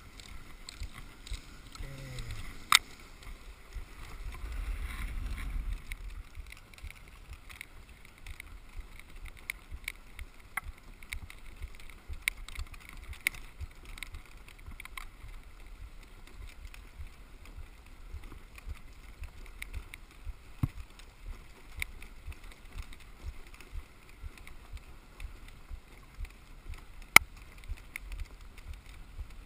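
Dog sled gliding over a packed snow trail: the runners make a steady scraping hiss, and the sled frame gives frequent small clicks and knocks. Two of the knocks are sharp and loud, one about three seconds in and one near the end, and a louder low rumble lasts a couple of seconds about four seconds in.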